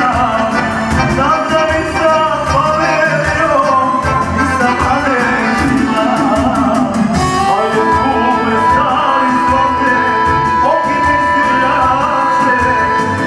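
Live band playing: a man singing through a microphone over accordion and electronic keyboard, with a steady beat. In the second half a long note is held steady.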